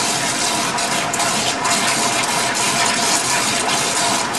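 Water aspirator running full blast to pull the rotary evaporator's vacuum: a steady rushing hiss of tap water, with a faint steady whine underneath.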